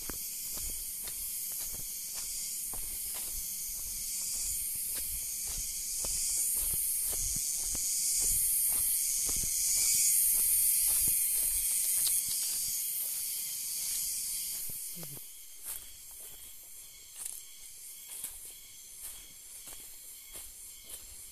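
High, hissing insect drone that pulses in long blocks, loudest for about the first fifteen seconds and then dropping away, with faint regular ticks about two or three a second beneath it.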